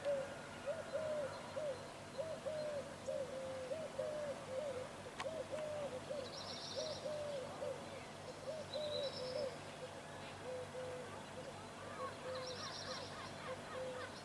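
A dove cooing over and over in a low, steady series of short calls that grows softer near the end, with a few brief high twitters from small birds about six, nine and twelve seconds in.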